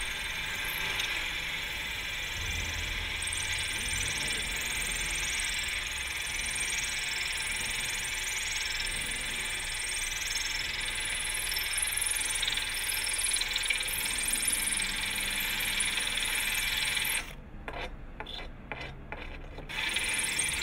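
Cordless drill running steadily as an Irwin diamond drill bit grinds into ceramic tile near its corner. About 17 seconds in, the drill cuts out and is pulsed in four or five short bursts before running steadily again.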